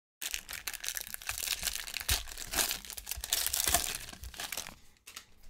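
Foil wrapper of a 2021 Topps Series 1 baseball card pack being torn open and crinkled by hand: a dense run of crackling that dies away near the end, with one last short crinkle.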